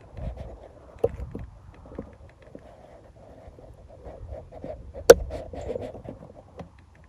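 Rustling and handling noise from a hand-held camera or clothing, with a few small knocks. The sharpest click comes about five seconds in.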